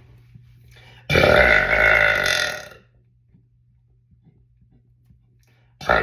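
A man's loud, drawn-out belch about a second in, lasting under two seconds, then a second belch starting just before the end.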